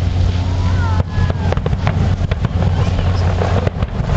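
Fireworks display: a rapid string of sharp bangs and crackles over a steady low rumble.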